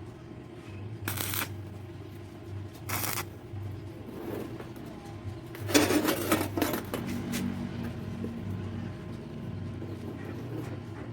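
Brief scrapes and clinks of objects being handled, with a louder burst of clatter about six seconds in, over a low steady hum.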